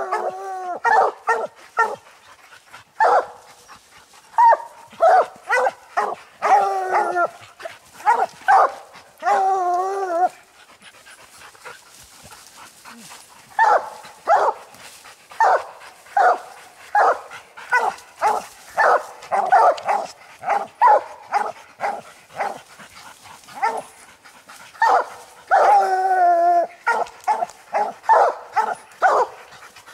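Coonhounds barking treed at the base of a tree: a steady run of short chop barks broken by several long, drawn-out bawls, with a pause of a few seconds about a third of the way in. It is the tree bark of hounds holding a raccoon up the tree.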